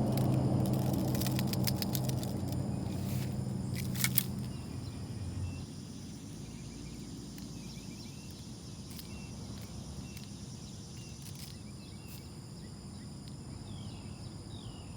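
Outdoor ambience with insects buzzing steadily at a high pitch. A low droning hum fades out about five seconds in, and a run of sharp clicks comes in the first few seconds, the loudest about four seconds in.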